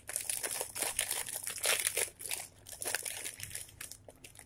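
Plastic wrapper of an instant-noodle packet crinkling in irregular crackles as it is handled and opened and the dry noodle block is pulled out.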